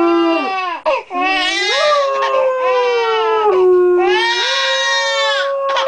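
An infant crying in repeated wails while a greyhound–borzoi mix dog howls along in long, held notes, the two voices overlapping. The cries break off briefly about a second in and then resume.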